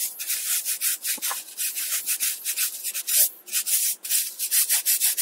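A brush scrubbing a bicycle cassette's sprockets with dishwashing liquid, in quick back-and-forth strokes of about four a second with a couple of short pauses. It is the cleaning stage, working out grit, sand and caked grease from between the cogs.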